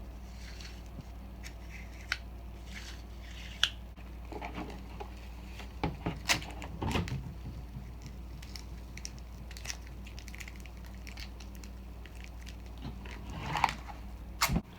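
Scattered light clicks and knocks of small parts being handled, with a steady low hum underneath.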